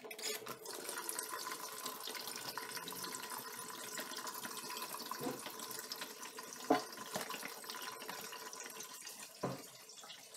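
Tap water running steadily into a stainless steel sink where a kettle stands, with three sharp metal knocks; the running water fades near the end.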